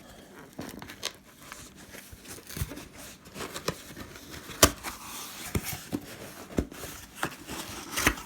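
Cardboard shipping box being opened by hand: tape cut and torn, cardboard and packing handled, with scattered clicks and knocks, the sharpest about four and a half seconds in.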